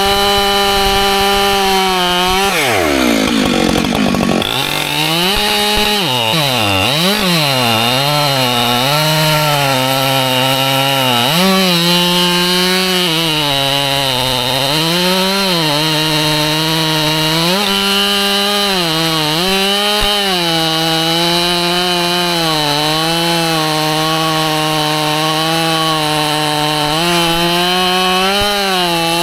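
Husqvarna two-stroke chainsaw cutting through white oak logs at full throttle. Its engine pitch sags each time the bar loads down in the cut and climbs back as it frees up. About three seconds in, the throttle is let off almost to idle and then opened again.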